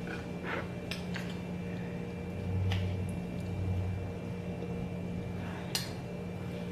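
A few scattered light clinks of utensils against dishes, over a steady low hum.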